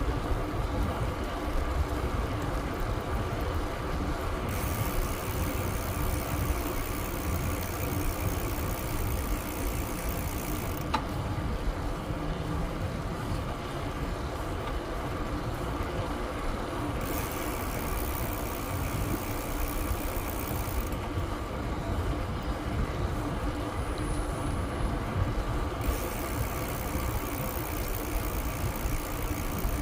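Steady rumble of wind buffeting the microphone and tyres rolling on a paved trail while riding a bicycle, with a faint constant whir and a high hiss that comes and goes every few seconds.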